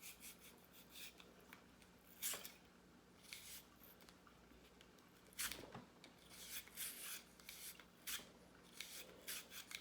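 Wire brush wet with cleaning solution scrubbing inside a pistol, making faint, irregular scratchy strokes.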